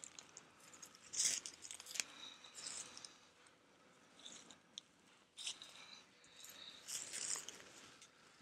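Faint, slow footsteps crunching through dry leaf litter, a step every second or so with gaps between.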